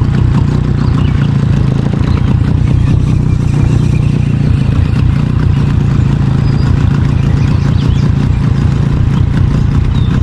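A boat motor running steadily with a loud, constant low hum.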